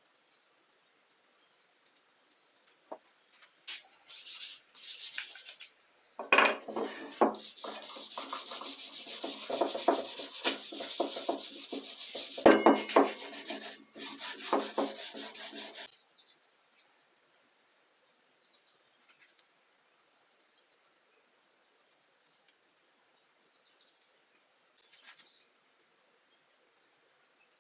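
Rubbing on wood in quick, repeated strokes for about twelve seconds, then it stops, leaving only a faint hiss.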